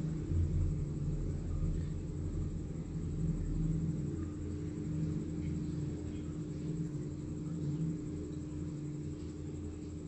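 A low, steady machine hum with a rumble.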